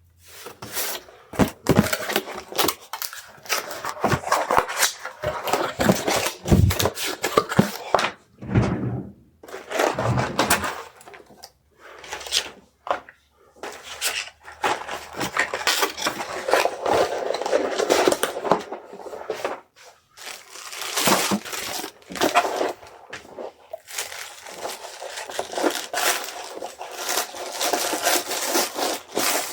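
Hands handling packaging for a shipping order: paper and plastic packing material rustling, crinkling and scraping in irregular spells, with a few low thumps between about six and eleven seconds in as items are set down.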